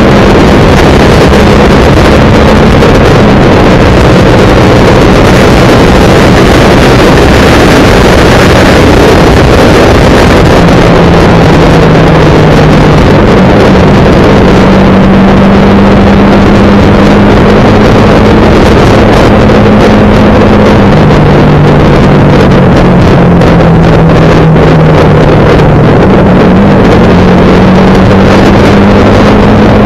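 Motorcycle engine running at road speed under loud, rushing wind on the microphone, the recording near its maximum level and distorted. The engine note drops and rises a few times as the throttle and speed change.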